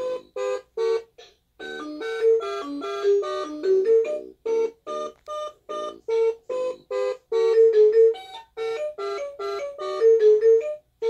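Fisher-Price Little Farm 1,2,3's electronic learning toy playing a simple tune of short beeping notes through its small speaker, with a brief pause about a second in before the next tune runs on.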